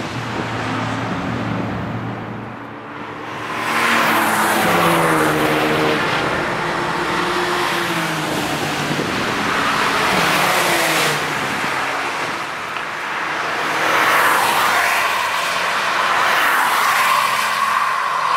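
Alpina BMW E39 sedan driving past at speed several times, its engine note rising and falling as it accelerates and lifts through the corners.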